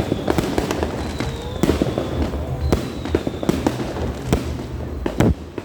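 New Year's fireworks going off in a dense barrage of bangs and crackle, with thin falling whistles threaded through it. Several louder bangs come near the end.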